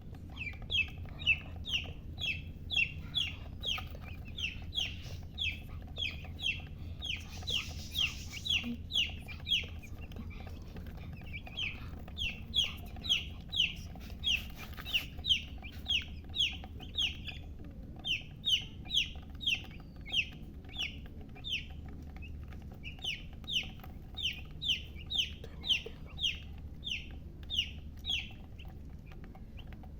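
Baby chicks peeping: a long run of short, high chirps, each sliding down in pitch, about two a second, with a few brief pauses.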